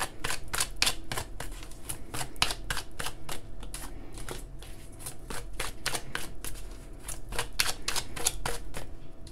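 A deck of oracle cards being shuffled by hand: a steady run of quick, light papery clicks and flicks.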